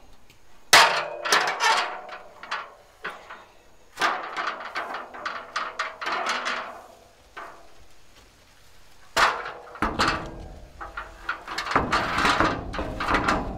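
Aluminium ladder clanking and rattling as it is handled and moved against the steel tank. The sharp metallic knocks come in clusters about a second in, again around four to seven seconds, and from about nine seconds on.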